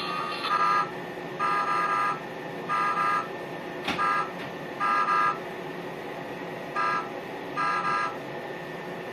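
A horn-like tone sounding in short, uneven blasts, about seven times.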